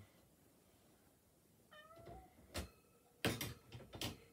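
A cat meows once, a short call rising slightly in pitch about two seconds in. It is followed by a clatter of sharp knocks and rattles, the loudest sound here, from the plastic pet carrier's wire top being handled.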